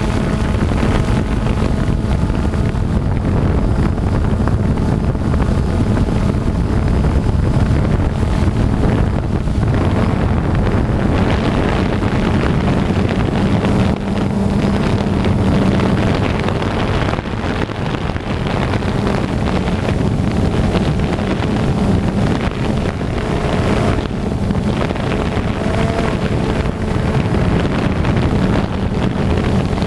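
FPV quadcopter motors and propellers buzzing steadily in flight, with wind rushing over the onboard camera's microphone. The pitch wavers slightly as the throttle changes.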